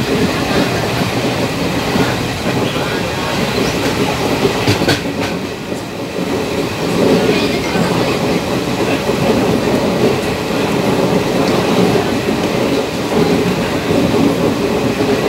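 Passenger train running at speed, heard from inside a coach by the window: a steady noise of wheels on the track with an occasional faint clack.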